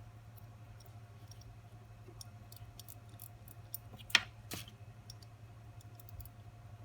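Light, scattered clicks of small metal watchmaker's tools against the parts of a pocket watch movement being assembled, with one sharper click about four seconds in and a smaller one just after. A steady low hum lies underneath.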